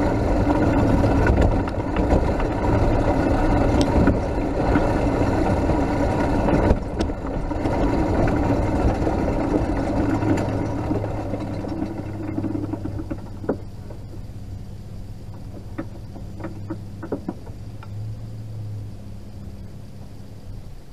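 Rumble and rattle of a Max II 6x6 amphibious ATV being flat-towed behind a Nissan Frontier pickup, with the pickup's engine running ahead. It grows quieter from about twelve seconds in, with a few short clicks near the end.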